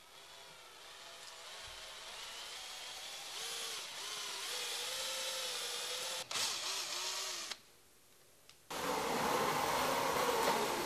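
Electric drill driving a paddle mixer through cement-based sealing adhesive in a plastic bucket, its pitch wavering as the load changes; it stops about seven and a half seconds in. After a short pause a louder, steady scraping begins as a notched trowel spreads the adhesive on the wall.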